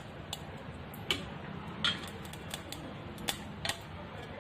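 Ghee heating in a pan on the stove: a faint steady hiss with scattered small ticks and crackles.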